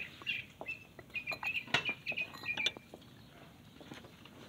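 A small bird chirping in a quick series of short high notes, mixed with light clicks, for about the first three seconds, then it goes quieter.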